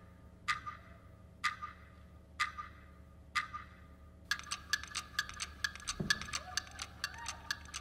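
Clock-ticking sound effect at the opening of a dance music track: single ringing ticks about once a second, then a faster ticking, several a second, from about four seconds in, with a low whoosh about six seconds in.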